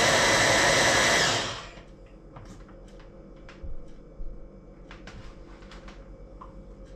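Immersion hand blender running at full speed in a tall beaker of liver-pancake batter, switched off about a second and a half in and spinning down. A few light knocks and clicks follow as it is handled on the counter.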